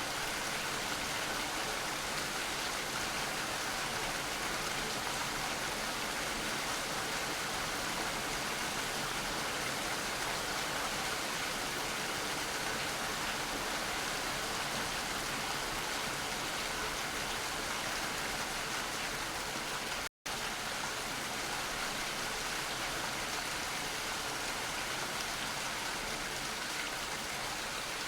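Steady rain falling, an even hiss of many drops without a break in intensity. About twenty seconds in the sound cuts out completely for a split second, then resumes.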